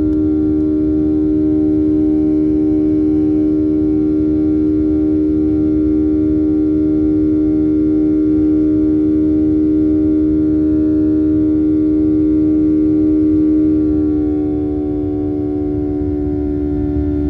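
CFM56-7B turbofan engines of a Boeing 737-800 at takeoff power, heard inside the cabin during liftoff and initial climb: a steady droning hum over a low rumble. About fourteen seconds in, the hum drops slightly in pitch and loudness.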